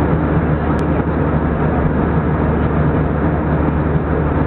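Steady airliner cabin noise in flight: a constant rush of engines and airflow with a low hum underneath.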